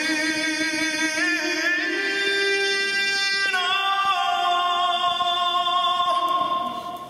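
Male solo voice singing long held notes with a few steps in pitch. The last note is sustained and fades out near the end.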